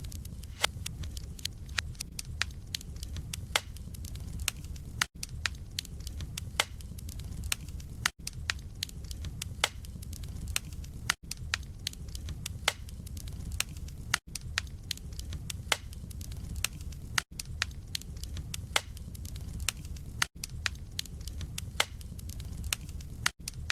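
Wood fire in a fireplace burning, with many sharp crackles and pops over a low rumble of flame. The sound cuts out for a split second about every three seconds.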